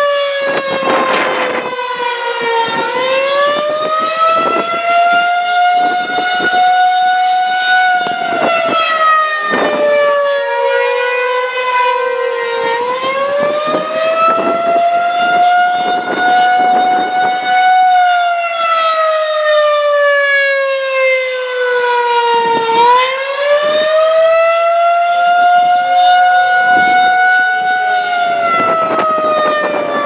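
Federal Signal 2001-SRNB rotating electromechanical outdoor warning siren sounding the attack signal: its pitch slides up and down in slow wails, about three cycles here. The sound swells and fades as the turning horn sweeps past.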